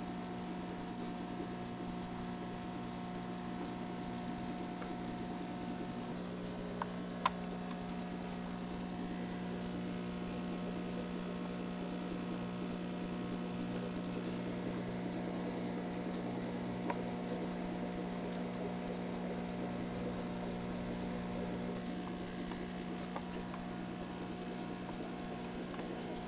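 Aquarium pump humming steadily, with a couple of faint sharp clicks or taps.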